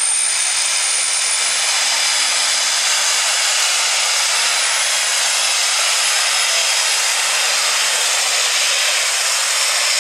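Heavy super stock pulling tractor's turbocharged engine running flat out under full load as it drags the weight sled. It makes a loud, steady noise topped by a high turbo whine that climbs during the first second or two and then holds.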